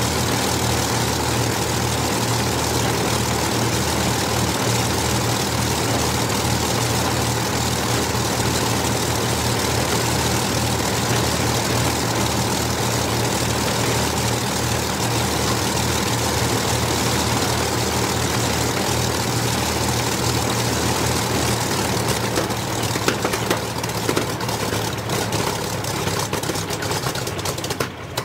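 The de Havilland Mosquito's two Rolls-Royce Merlin V-12 engines idle steadily with a deep, even drone. In the last few seconds the sound turns rough, with irregular pops, and the level falls away as one engine is shut down.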